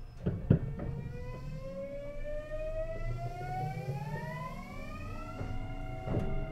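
Mitsubishi IGBT VVVF inverter of a Kintetsu 9820 series electric train whining as the train accelerates: a rising tone climbs steadily for about four seconds, then settles into steadier tones, over a low running rumble. Two knocks come just after the start, and another comes near the end.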